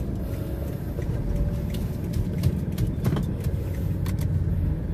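Toyota Fortuner's 3.0-litre turbodiesel engine and road noise from inside the cabin while driving: a steady low rumble. A few sharp light clicks come in the middle of it.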